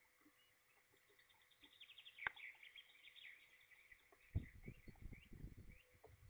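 A bird's rapid run of short high notes starts about a second in, with a sharp click partway through. Near the end comes a short run of low, dull thumps.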